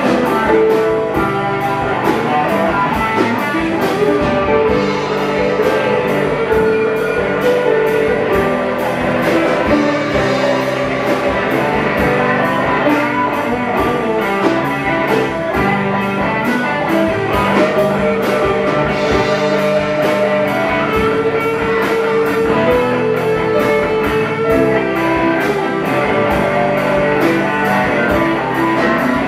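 A live band playing a song led by electric guitars over a steady beat.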